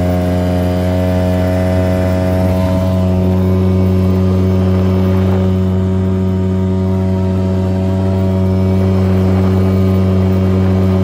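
Apache 5 five-horsepower outboard motor running steadily with a small inflatable boat on the plane against the current, its pitch holding even.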